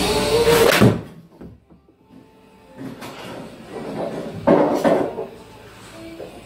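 Golf iron striking a ball off a hitting mat: one sharp crack less than a second in, as the background music cuts off. A second, longer and softer burst of sound follows about four and a half seconds in.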